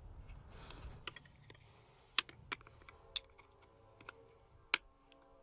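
Scattered sharp plastic clicks and snaps, about six over a few seconds, as the lawnmower carburetor's plastic primer-bulb housing is handled and pried at to work the cracked primer bulb loose.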